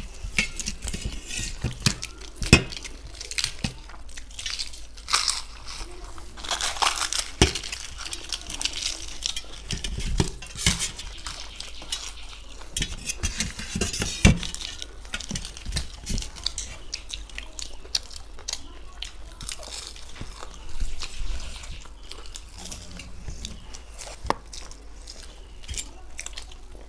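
Close-miked eating: crisp, flaky khasta kachori being broken apart by hand and chewed, giving a stream of crackly crunches and short clicks, densest in the first half.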